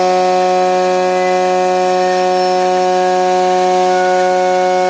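CNC aluminium profile machining center spindle milling the edge of an aluminium profile with an end mill: a steady whine of several held tones that does not change in pitch.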